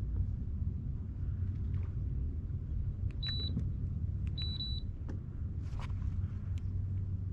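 A steady low machine hum, with two short, high electronic beeps a little over a second apart past the middle.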